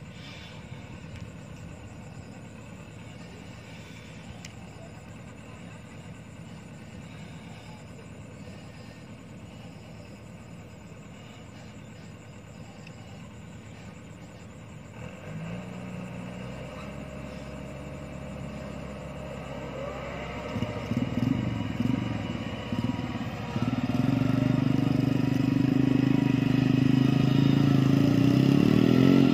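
Rice combine harvester engine running: faint and low for the first half, then its engine note comes in about halfway and grows much louder as the machine drives closer, staying loud and steady near the end.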